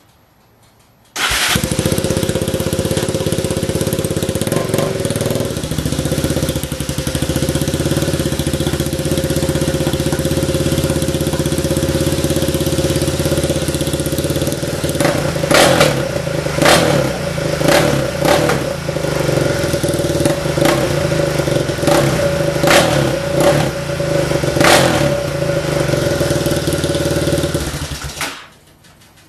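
A 2003 Yamaha Raptor 660R's single-cylinder four-stroke engine fires up about a second in on a cold start and runs at a steady idle. Several sharp cracks come over it in the second half, and the engine cuts off suddenly near the end.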